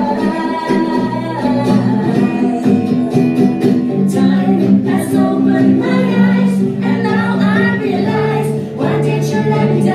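Live band music: a melodic lead line over sustained chords and bass, with no sung words.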